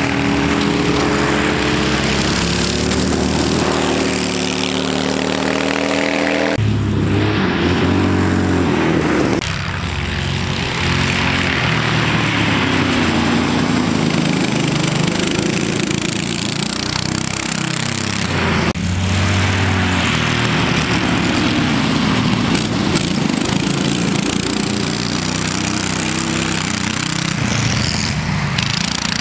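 Racing go-kart engines running hard, their pitch rising and falling as the karts accelerate and lift off through corners. The sound changes abruptly three times, about 7, 9 and 19 seconds in, as different shots are cut together.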